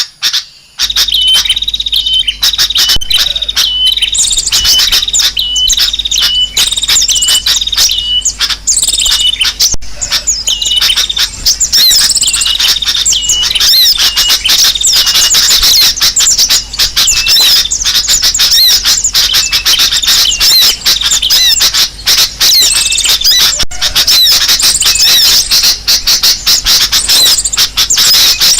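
Bird-lure recording of many small birds calling at once: a dense, loud, unbroken chorus of chirps and squawks, the agitated calling that draws other birds in.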